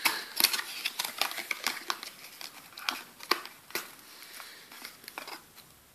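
Small paperboard product carton being opened by hand, its flaps and paper insert crinkling and crackling in irregular sharp clicks that thin out near the end.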